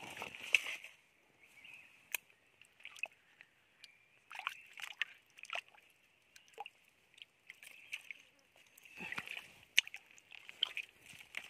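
Shallow stream water sloshing and splashing in short, irregular bursts as someone wades and gropes by hand for fish in a drying pool, over a steady high-pitched drone.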